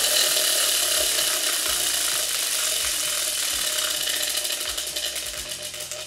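Tabletop prize wheel spinning, its pointer clicking rapidly over the pegs. The clicks slow and fade as the wheel coasts toward a stop near the end.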